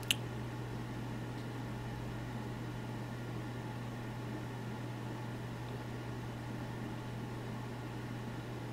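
Steady low electrical hum with faint hiss, the background noise of a recording setup, with one sharp computer mouse click just after the start.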